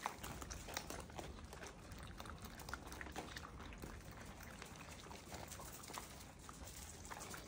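Several puppies eating together from a tray of dry kibble and meat chunks: faint, irregular crunching and wet chewing and smacking.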